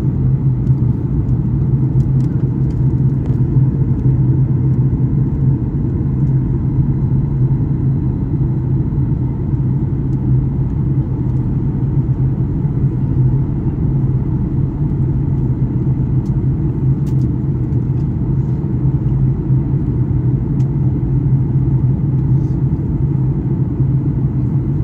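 Jet airliner cabin noise: a steady low rumble of engines and airflow with an even hum underneath.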